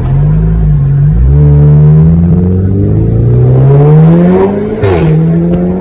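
Tuned Volkswagen Golf R's turbocharged four-cylinder engine, heard from inside the cabin, accelerating hard through the gears. The engine note rises, dips at a gear change about a second in, then climbs through a long pull and falls at the next upshift near the end with a short sharp crack.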